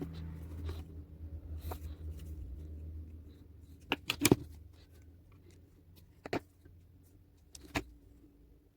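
A low rumbling hum for the first three seconds, then a few sharp clicks or knocks: a close double click near the middle, the loudest, then single ones about six seconds in and near the end.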